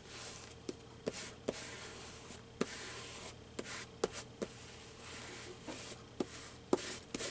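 Hands rubbing and smoothing freshly glued thin paper down onto a book page, a soft scuffing broken by light taps and clicks of fingers and small tools on the paper.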